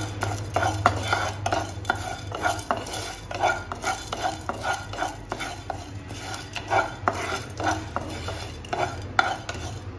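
A wooden spatula stirs dry chana dal and urad dal around a nonstick pan, scraping the pan's surface and rattling the loose grains in irregular strokes with sharp clicks. The lentils are being roasted dry, without oil. A steady low hum runs underneath.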